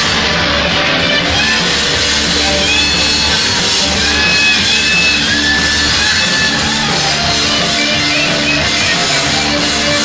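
Live rock band playing loud, with electric guitars to the fore.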